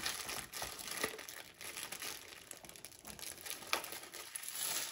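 Plastic wrapping on a rolled diamond-painting canvas crinkling and crackling as it is worked open by hand, with a few sharper crackles along the way.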